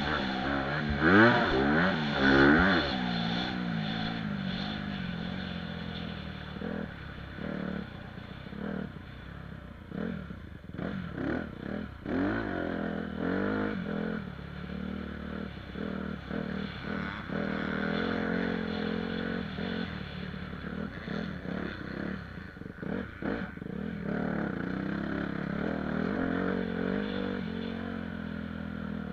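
2018 Honda CRF 250 motocross bike's single-cylinder four-stroke engine running under load around a dirt track. Loud rising and falling revs in the first few seconds, then quieter running broken by many short dips and surges as the throttle is worked.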